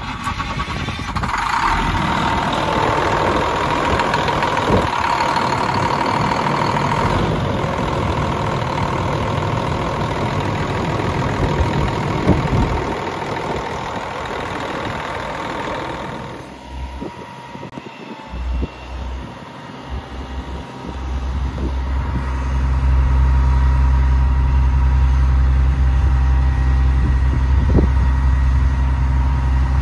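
Cummins ISM turbocharged diesel engine of a heavy Western Star truck idling, heard close at the open engine bay, with a steady whine over it in the first several seconds. From about two-thirds of the way through it turns to a deeper, steady low idle rumble.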